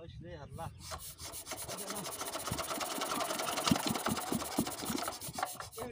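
Small single-cylinder diesel engine on an irrigation water pump being hand-cranked. A fast, even clatter builds for about four seconds and stops near the end without the engine running on.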